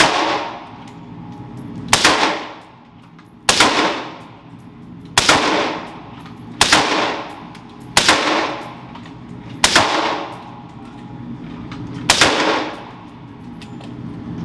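Gunshots at a shooting range: eight single shots fired one at a time, about one every one and a half to two seconds, each sharp crack followed by a short ringing echo.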